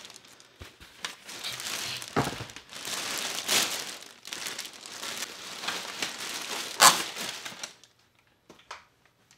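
Thin clear plastic packing bag crinkling and rustling as it is pulled off a foam insert, with one sharp, louder crackle near the end.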